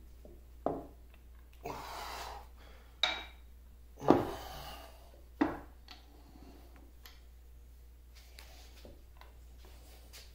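Heavy cast-iron parts of a 1950 LeBlond Regal lathe's carriage being worked loose by hand: four sharp metal knocks and clunks, the loudest about four seconds in and ringing briefly, with a short metal-on-metal scrape between the first two. Only faint small clicks follow in the second half.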